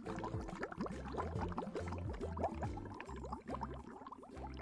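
Animated underwater bubbling sound effect, a stream of short rising bubble pops, over soft background music with held notes and a low bass line.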